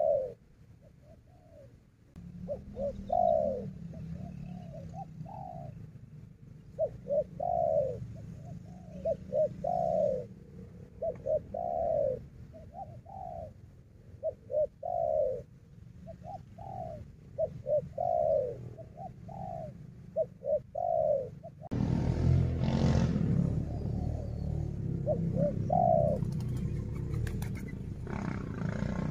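Spotted dove cooing over and over, each phrase a short run of falling notes. About two-thirds of the way through, a loud rough noise comes in and continues, with a few more coos heard under it.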